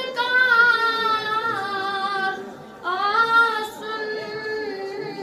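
A boy singing a Kashmiri naat unaccompanied, in long held, wavering notes. One phrase ends about two and a half seconds in and the next begins a moment later.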